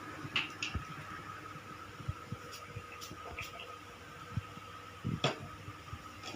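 A faint steady hum with scattered small knocks and a few brief rustles, loudest about half a second in and again near the end.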